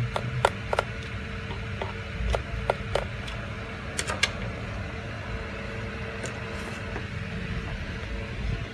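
Sharp clicks and taps from a small plastic device being handled, several in the first few seconds and a close pair about four seconds in, over a steady low hum.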